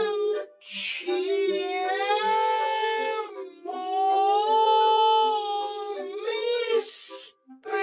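A dog howling in long, drawn-out notes with slight bends in pitch, two or three seconds each, with quick breaths between them. A faint steady beat of music runs underneath.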